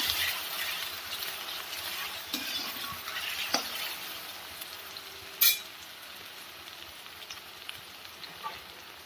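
Grated taro root sizzling in hot mustard oil in a kadhai, frying toward light brown, while a spatula stirs and scrapes through it with a few small clicks. There is a short sharp clink about five and a half seconds in, and the sizzle grows quieter toward the end.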